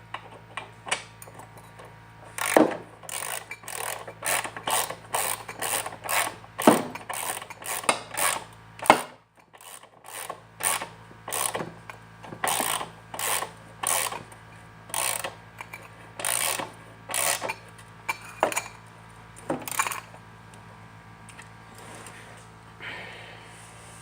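A socket ratchet being worked back and forth to tighten a bolt, clicking in short strokes about twice a second, with a brief pause about nine seconds in, and stopping about twenty seconds in.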